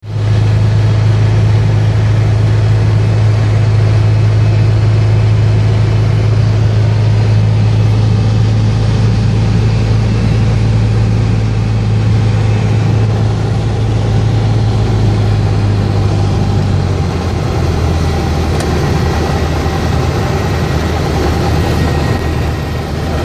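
Piston engine and propeller of a light single-engine plane droning steadily inside the cabin. About two-thirds of the way through, the drone drops to a lower pitch as the engine is throttled back for the landing approach.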